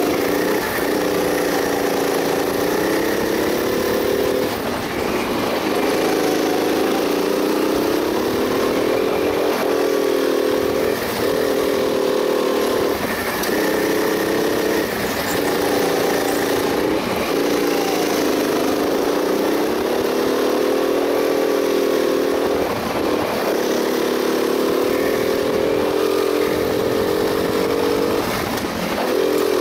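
Go-kart engine heard from the driver's seat, running continuously with its pitch rising and falling as the kart accelerates and lifts off for corners; the engine note briefly drops every few seconds through the lap.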